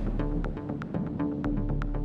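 Background music: sustained bass and held notes with a light percussive tick about three times a second.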